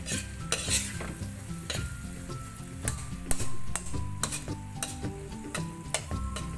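A cooking utensil stirring a sauce in a frying pan over the heat. The food sizzles, and the utensil knocks and scrapes against the pan at an irregular pace.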